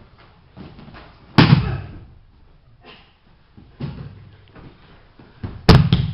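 Bodies slamming onto martial-arts floor mats as a person is thrown and taken down: one loud slam about a second and a half in and two more close together near the end, with lighter thumps of feet and bodies on the mats between them.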